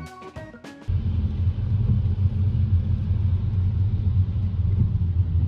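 Steady low rumble of road and engine noise inside a moving car's cabin on a wet highway. It starts about a second in, when a few notes of music end.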